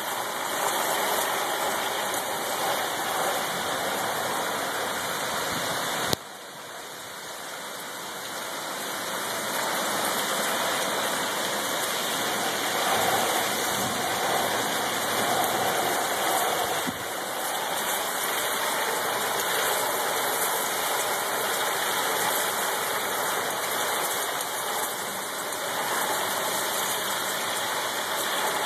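Heavy rain shower pouring steadily, a dense even hiss. About six seconds in there is a click and the sound drops, then builds back over the next few seconds.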